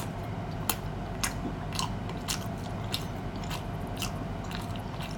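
Close-miked chewing of a bite of big black sausage: wet mouth clicks and smacks about twice a second, over a steady low hum.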